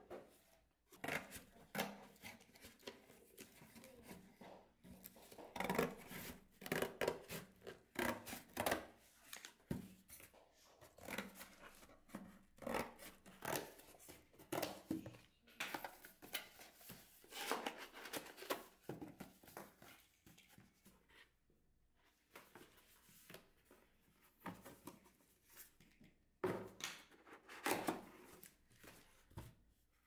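Cardboard boxes being cut with scissors and handled: irregular snips, scrapes and rustles of cardboard on and off, with a quieter pause after about twenty seconds.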